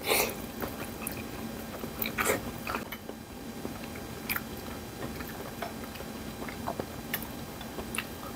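A man biting into and chewing pieces of boiled meat, with wet mouth sounds and scattered small clicks. The loudest bites come right at the start and about two seconds in.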